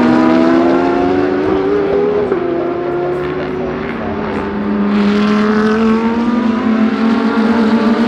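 GT3 race car engines accelerating past on the circuit, their pitch climbing steadily. The pitch drops back about two seconds in, and another car's rising engine note builds from about five seconds.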